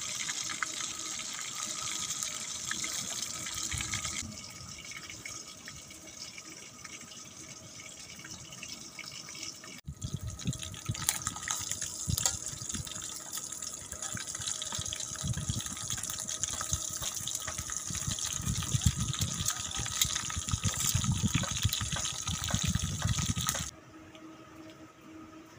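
Hot oil sizzling and crackling as seasoned free-range chicken pieces deep-fry in a wok over a wood fire, with knocks of the tongs turning them. The sizzle is softer for a few seconds, louder again after about ten seconds, and drops away near the end.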